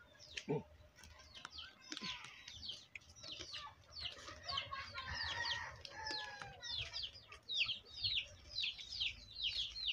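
Birds calling: a steady run of quick, high, falling chirps, several a second, with a few lower calls mixed in around the middle.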